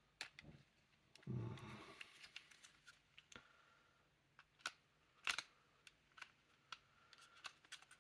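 Faint, scattered clicks and taps of a wooden puzzle box's parts being handled and worked, with a soft low thump about a second and a half in and the sharpest click a little past five seconds.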